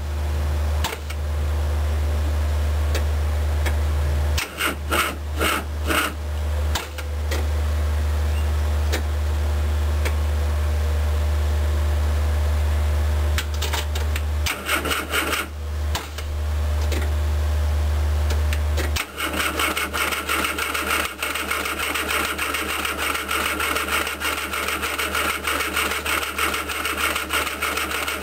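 1974 Mini's 1400cc MiniSport A-series engine running unevenly on years-old fuel: a steady low drone that falters twice, then about two-thirds through the drone drops away into a fast, even mechanical clatter.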